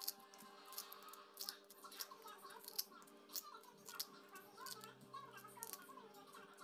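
Peeled kedondong (ambarella) fruits being broken apart by hand, giving a quick series of sharp, crunchy cracks, about two a second.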